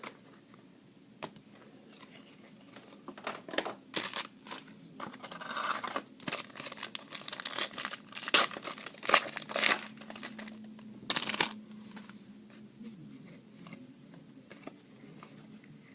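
A trading-card pack wrapper being torn open and crinkled by hand, a run of sharp crackles and tearing noises that dies away a few seconds before the end.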